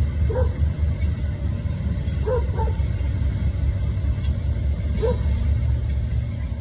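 Steady low rumble of a CSX coal train's diesel locomotives passing. A dog barks four times over it: about half a second in, twice just after two seconds, and once around five seconds.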